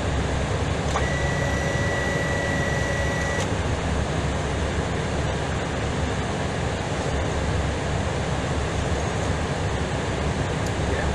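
Airbus A320ceo cabin noise in flight: a steady roar of engines and rushing air. A thin steady tone sounds for about two seconds, starting a second in.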